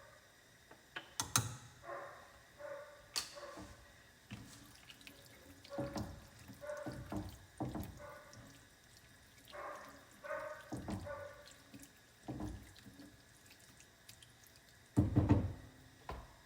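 Kitchen clatter of clicks and knocks from utensils and containers, with a small dog yipping now and then. A louder thump comes near the end.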